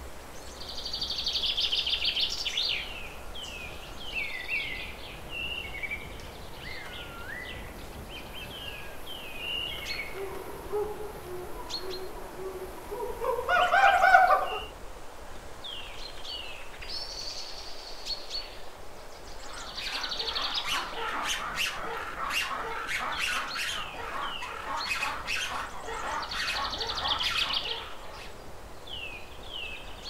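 Forest ambience full of bird calls: short chirps and whistles throughout, and one drawn-out call rising in pitch that is loudest about 14 seconds in. A dense run of rapid chattering calls follows from about 20 to 28 seconds.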